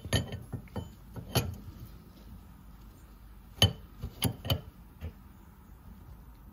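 A 22 mm spanner clinking on the fuel tank hose union nut as the nut is tightened: several sharp metallic clicks in the first second and a half, then four more between about three and a half and five seconds in.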